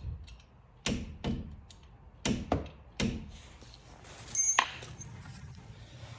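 A mallet striking a drill bit held as a punch against the pad retaining pin of a four-piston Brembo brake caliper, about five knocks in the first three seconds, to check the pin is driven fully through. About four and a half seconds in, a sharper metallic clink rings briefly.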